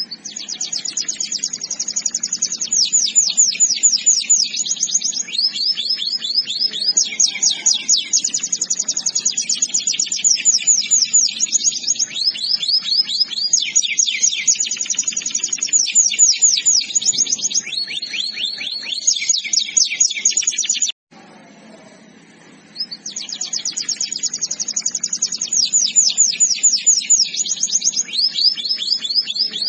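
Canary singing long rolling trills of rapid high notes, switching from one trill to another every second or two. The song breaks off for about two seconds around two-thirds of the way through, then starts again.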